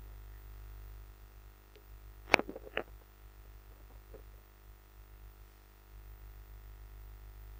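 Low steady hum, with two sharp clicks a little over two seconds in, about half a second apart, the first the louder, and a faint tap a little later.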